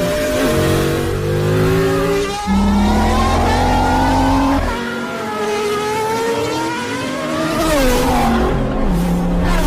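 Several race car engines revving hard at once, each climbing in pitch and dropping back as it shifts up through the gears, with a deep low rumble for about two seconds near the middle.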